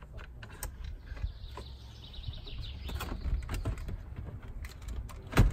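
Hands working on the car's dashboard and new head unit: scattered light clicks and knocks, a faint squeak around the middle, and one louder knock near the end.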